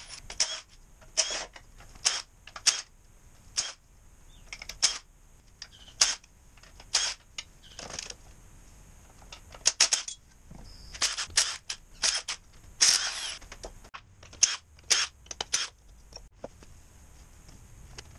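Cordless impact wrench run in about twenty short bursts at irregular intervals, one every second or so, as bolts are taken off during an engine teardown. The bursts stop a couple of seconds before the end.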